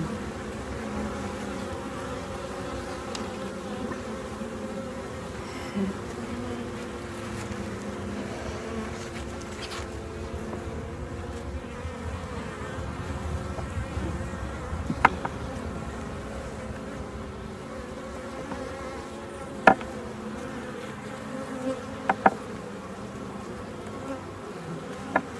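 Honey bees buzzing around an open hive in a steady, layered hum, the sound of a calm colony. A few sharp clicks of a metal hive tool against the wooden frames stand out in the second half.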